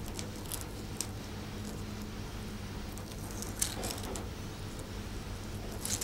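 Dry onion skin crackling and rustling faintly as it is peeled off with a small knife, with a few light clicks, over a steady low hum.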